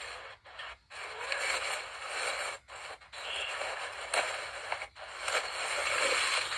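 Dry dead leaves rustling and crackling as a hand grabs and pulls them from the base of a potted dracaena, in uneven handfuls broken by short pauses.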